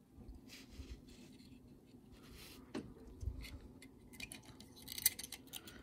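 Faint handling of small plastic model locomotive parts: light scrapes and scattered clicks, with a quick run of clicks near the end, over a low steady hum.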